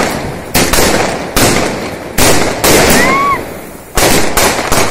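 Multi-shot box of stacked firework rockets firing in quick succession: six sharp bangs in under five seconds, each followed by a fading crackle, with a short whistle rising and falling about three seconds in.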